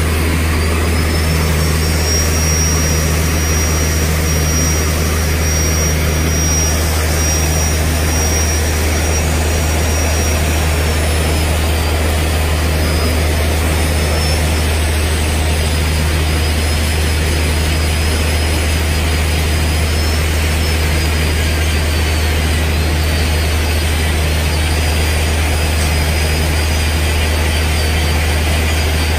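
Handheld electric button-bit grinder sharpening the carbide buttons of a borewell drilling bit: a steady high motor whine that dips and wavers in pitch as the cup wheel bears on each button, over rasping grinding noise. Beneath it runs a strong, continuous low hum.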